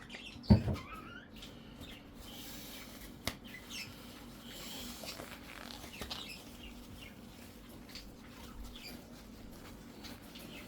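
Tissue being wiped over a laptop screen, with short squeaks and rubbing. There is a single thump about half a second in.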